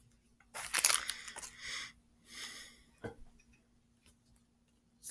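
Crinkling and rustling of a foil booster-pack wrapper being handled, in two bursts, then a single sharp click about three seconds in.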